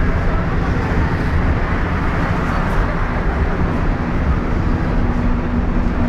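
Inside a moving city bus: steady engine drone with road and rattle noise. A faint low hum joins in about four and a half seconds in.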